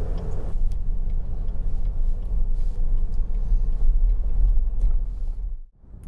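Steady low rumble of road and engine noise inside a moving car's cabin. The sound cuts out briefly near the end.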